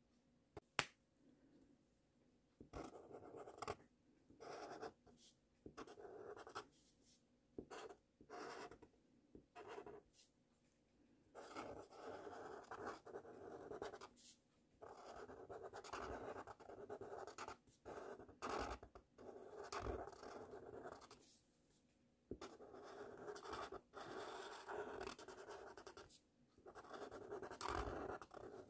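Felt-tip marker writing cursive letters on paper: stretches of scratching a second or two long, stroke by stroke, with short pauses between them. A sharp click comes a little under a second in.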